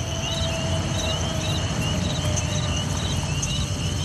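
Crickets chirping in short, regular high trills, about two a second, over a low, steady rumble of night ambience.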